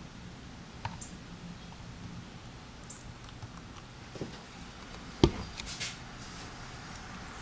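Quiet room tone with a faint click about a second in and one sharp knock a little after five seconds, followed by a few lighter clicks.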